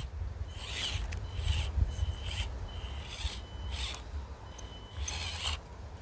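Axial SCX24 Deadbolt micro RC crawler's small electric motor and gears rasping in about six short throttle bursts as it climbs over rocks.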